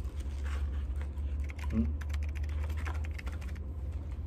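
A quick run of crackling, rustling clicks from something being handled close to the microphone, with a short hummed 'hmm' of a voice about two seconds in, over a steady low hum.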